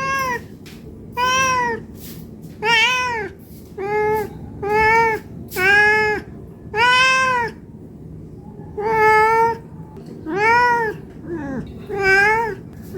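A domestic cat meowing over and over, about ten rising-and-falling meows roughly a second apart: a hungry cat begging for food.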